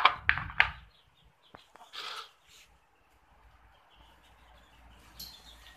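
Plastic pet bowls set down on a tiled floor, a few sharp clacks in the first second, then a short cat meow about two seconds in.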